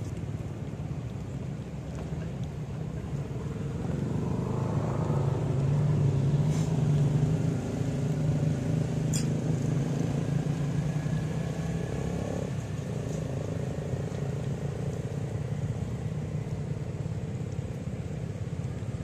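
A motor vehicle's engine running steadily, growing louder about four seconds in and staying loud after that.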